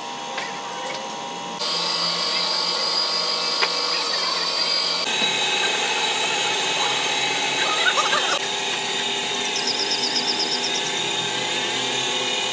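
Steady whine and hum of workshop power tools or machining, in several clips that change abruptly about one and a half, five and eight and a half seconds in.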